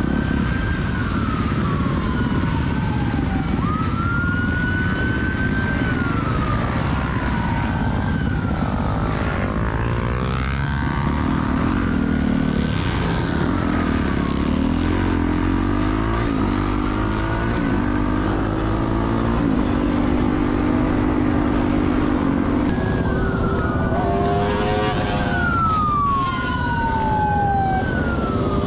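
A siren wailing, its pitch rising and then sliding down again every two to three seconds, over wind rush and motorcycle engine noise. Midway a motorcycle engine revs up through several gears.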